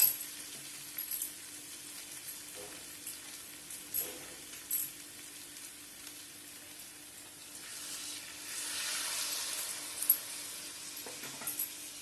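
Ash gourd greens sizzling in a pan just after a little water has been added, a steady hiss with a few light clicks of a utensil against the pan. The sizzle swells for a couple of seconds past the middle.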